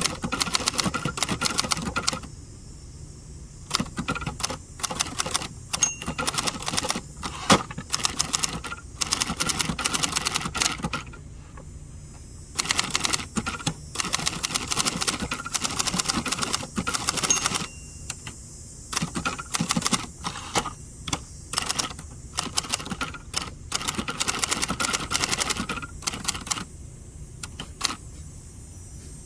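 A 1967 second-generation Hermes 3000 portable manual typewriter being typed on: runs of rapid typebar strikes lasting several seconds, with short pauses between them, over a steady low hum.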